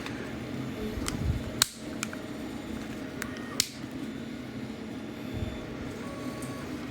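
Small hard plastic multitool case being handled: several sharp clicks and taps over a steady background hum.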